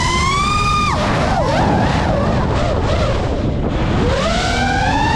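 FPV racing drone's brushless motors and propellers whining, the pitch climbing with throttle and then dropping sharply just under a second in. The whine wavers lower for a few seconds over a rush of wind and prop wash, then climbs again near the end.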